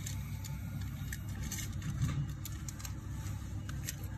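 Steady low rumble like a running engine, with faint small clicks scattered through it.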